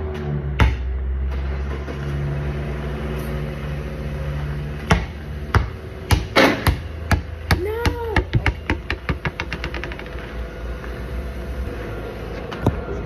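A basketball hitting a hard court: a few separate bounces, then a run of bounces that come quicker and quicker and fainter as the ball settles to rest.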